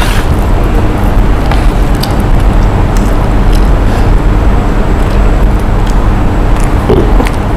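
Steady, loud rumble of road traffic, with a few faint clicks scattered through it.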